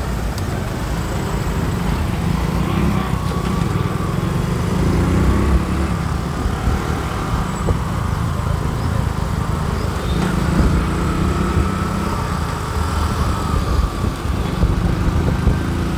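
Continuous road traffic: the engines of passing vehicles running together in a steady low rumble, with a faint engine whine that wavers up and down.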